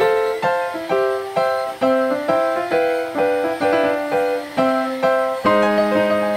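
Background music: a light melody of short notes that fade after each strike, about two a second.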